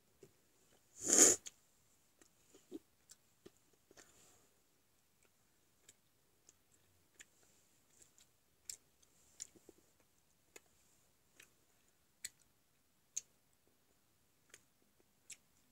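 A single short, loud brushing bump about a second in, then scattered faint sharp clicks, roughly one a second.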